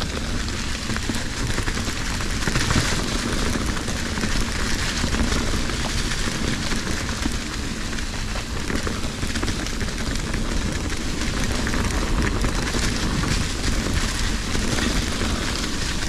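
Fezzari Cascade Peak mountain bike's tyres rolling fast over a dirt trail thick with dry fallen leaves: a steady rush of many small crunches and crackles.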